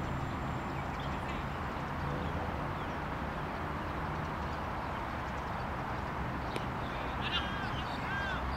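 Steady outdoor rumble and hiss, such as wind on the microphone or distant traffic. Near the end come a faint click and then two short shouted calls from the cricket players, as the ball is bowled and played.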